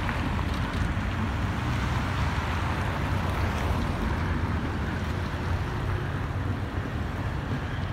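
Amtrak Vermonter passenger train pulling away: a steady low rumble of its diesel locomotive and wheels on the rails, slowly fading.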